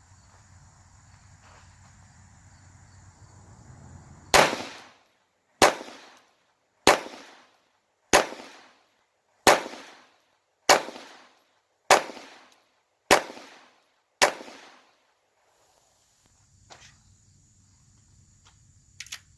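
Glock 44 .22 LR pistol fired nine times at a steady, unhurried pace, about one shot every 1.2 seconds, each crack followed by a short echo.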